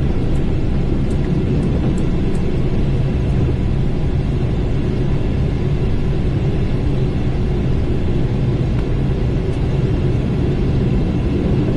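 Steady low rumble on the flight deck of a Boeing 777 climbing out just after takeoff: engine and airflow noise.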